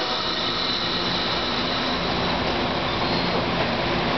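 Passenger coaches of a departing electric commuter train rolling past close by: a steady rush of wheel and rail noise with a thin high whine that fades out after about three seconds.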